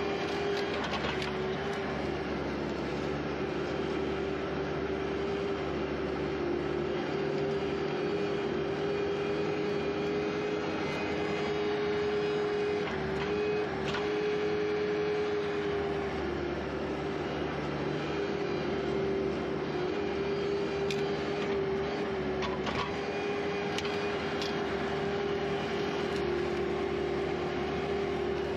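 Skid steer engine running steadily at high throttle, with a few brief dips in pitch.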